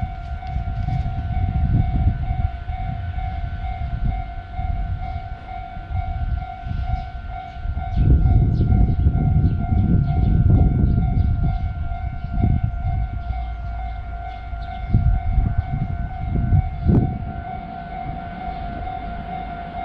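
Railroad crossing alarm sounding one steady tone, over low rumbling and knocking that rises and falls and is loudest about halfway through.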